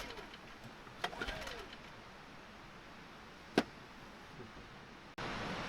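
Small petrol generator being pull-started on choke: the recoil cord whirs up and down about a second in, and the engine does not catch. A sharp click comes about three and a half seconds in, and a steady hiss cuts in abruptly near the end.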